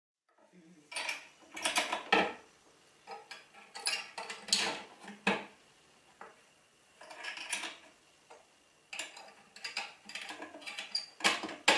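Aluminium tube sleeves clinking and scraping against the notched steel bars of a homemade stove simmering support as they are set in place by hand: irregular clusters of light metal taps and clicks.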